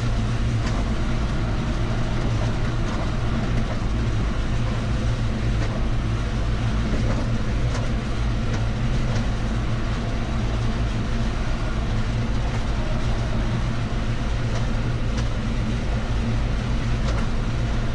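John Deere tractor's diesel engine running steadily under way, heard from inside the cab as a constant low drone, with a few faint clicks and rattles.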